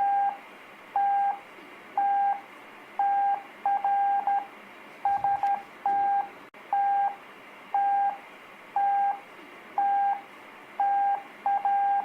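Morse code practice tone, one steady beep keyed on and off: mostly single long dahs, each the letter T, about once a second, with a few quicker groups of dits and dahs from earlier letters mixed in.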